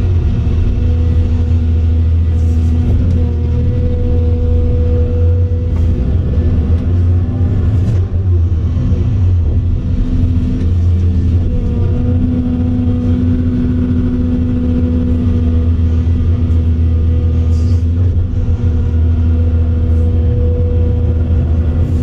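Volvo EC700CL excavator's diesel engine running steadily under working load, heard from inside the cab, with a higher whine that swells and fades several times as the boom, arm and bucket are worked.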